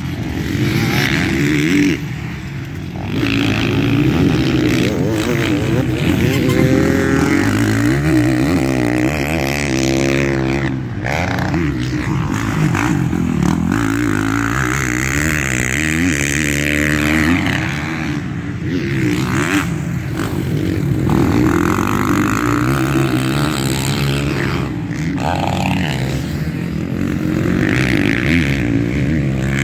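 Off-road racing dirt bike engines revving hard, their pitch climbing and dropping again and again as the riders work the throttle and shift gears. The sound breaks off sharply a few times.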